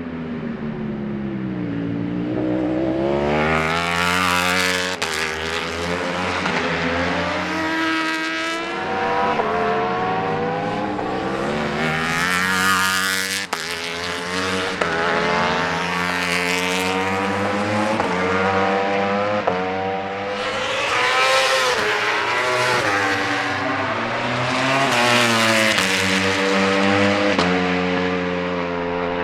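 Several Ducati Panigale V4 superbikes' V4 engines at racing speed, one after another, each rising in pitch through the gears and dropping at each shift, with the sound swelling and fading as the bikes pass.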